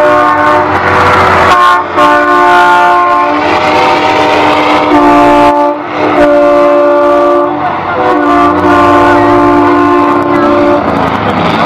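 Semi-truck air horns sounding in long, loud chord-like blasts of several notes at once, with short breaks between them about every two to three seconds, over the rumble of passing trucks.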